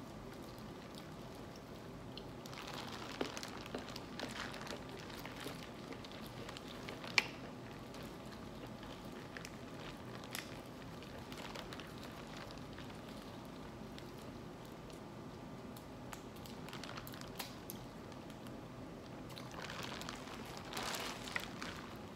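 Sauce-coated crawfish and crab shells being cracked and peeled by hand, with wet squishing and crinkling of the plastic boil bag, in scattered clusters of small clicks and crackles. One sharp crack about seven seconds in stands out above the rest, over a steady low room hum.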